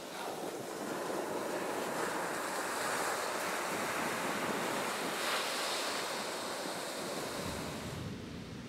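Ocean surf breaking and washing up the beach, with wind on the microphone. The wash swells through the middle, and the high hiss drops away near the end.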